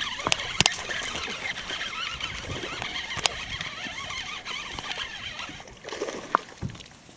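Fishing reel being wound in as a bass hooked on a popping frog is fought through lily pads: a steady hiss with a few sharp clicks scattered through it, fading near the end.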